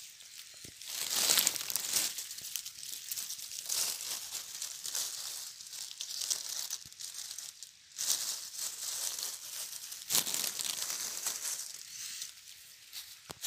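Dry beech leaf litter crinkling and rustling in irregular bursts as a hand pushes through and brushes the leaves aside.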